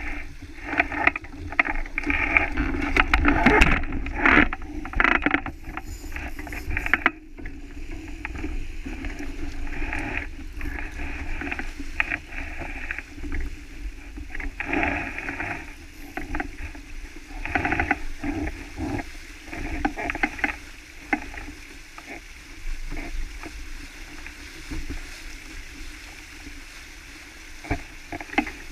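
Wind buffeting the microphone and water rushing along the hull of a sailing boat under sail, with irregular knocks and clicks throughout.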